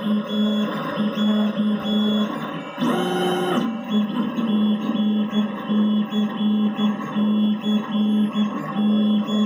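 Stepper motors of a dual-extruder FDM 3D printer humming at one fixed pitch in short, quickly repeated pulses as the print head moves back and forth while printing. About three seconds in, a brief whir at a different pitch breaks the pattern.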